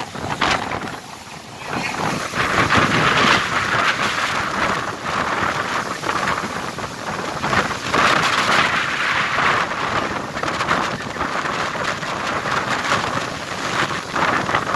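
Strong wind and sea spray blowing across a fishing vessel's deck in heavy seas, buffeting the microphone. It is a loud rushing noise that swells in gusts, strongest about two to three seconds in and again around eight seconds.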